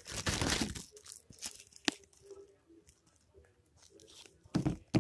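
Handling noise as a phone camera is moved about and objects are picked up: a dense burst of rustling in the first second, a sharp click about two seconds in, a quieter stretch, then more rustling and a knock near the end.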